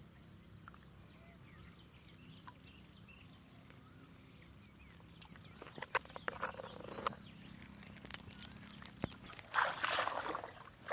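Faint chirping of small birds outdoors, then clicks and bursts of rustling from about halfway through that grow louder near the end.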